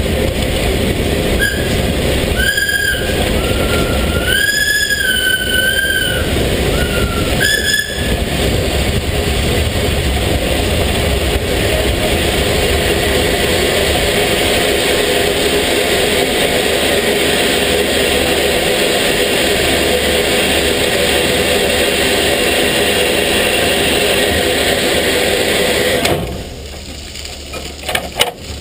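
Steam locomotive 33-037, an ex-German class 52 2-10-0, running along the line, heard close beside the engine as a loud, steady noise. From about a second and a half to eight seconds in, a high squeal that wavers in pitch comes and goes several times. About 26 seconds in, the noise drops sharply.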